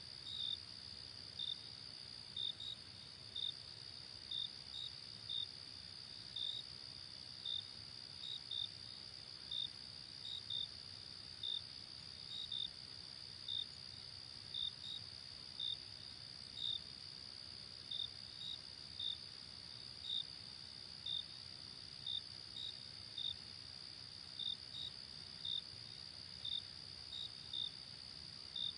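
Crickets chirping: a steady high trill under louder short chirps that come about once or twice a second at uneven spacing, some in quick pairs.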